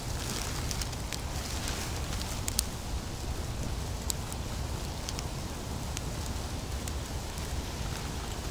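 Wood campfire crackling with scattered sharp pops, with squirrel meat sizzling on a fire-heated stone.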